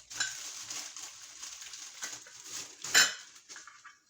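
Stainless steel pressure cooker being handled while its plastic wrapping is pulled off: steady rustling and light metal knocks, with one sharp clank about three seconds in.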